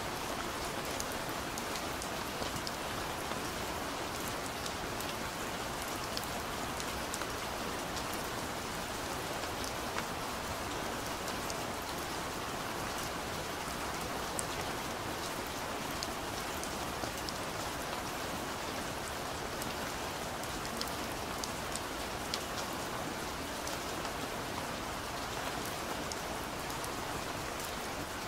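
Steady rain falling, an even hiss dotted with scattered sharper ticks of individual drops.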